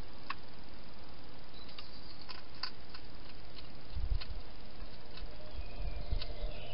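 Wild hedgehog chewing dry food: scattered sharp crunching clicks over a steady hiss, with low thumps about four and six seconds in.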